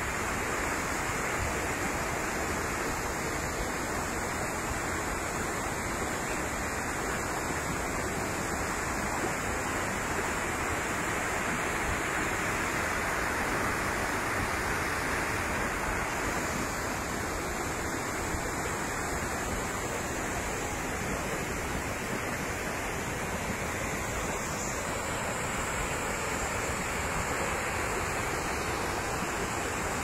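Waterfall pouring steadily into its plunge pool: a continuous, even rush of falling water.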